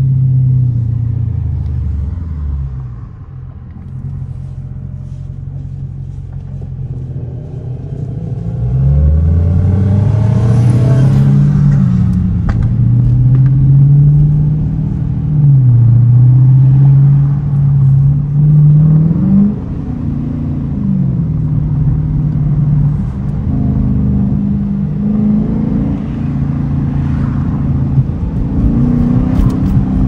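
Dodge Challenger R/T's 5.7-litre HEMI V8, heard inside the cabin. The engine note falls and stays low for a few seconds, then about nine seconds in it revs up as the car accelerates. The pitch climbs and drops back several times as the automatic shifts up through the gears.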